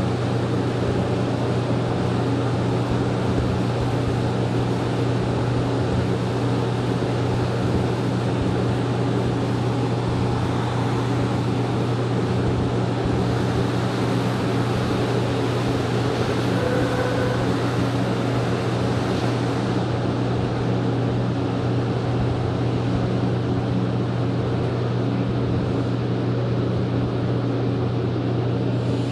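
Cabin noise inside a rubber-tyred NM-79 metro train running through a tunnel: a steady, even drone with a strong low hum.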